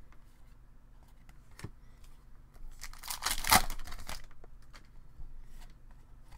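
A hockey card pack's wrapper being torn open, a crackly tearing lasting about a second and a half midway through. A few light clicks of cards being handled come before it.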